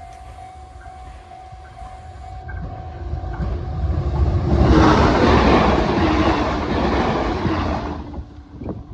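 Level-crossing warning bell ringing steadily, then a JR Central HC85 series hybrid diesel train passing the crossing at speed. The train's noise builds from about four seconds in, is loudest around five seconds, and dies away near the end.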